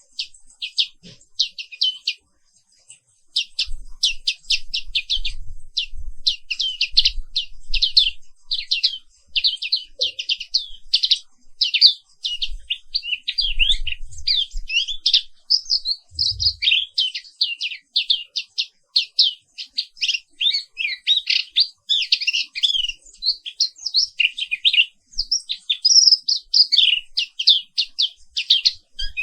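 White-eye (pleci papua) song: a fast, near-continuous run of high chirps and trills, with a short pause about two seconds in.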